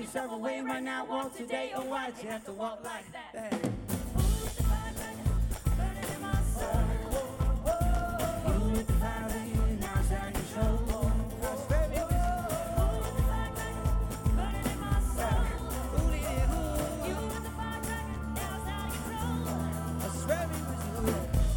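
Live band performance of a pop-rock song with singing: at first female voices harmonise over light accompaniment. About four seconds in, the band's low end comes in, and the song carries on with a lead voice, acoustic guitar and band.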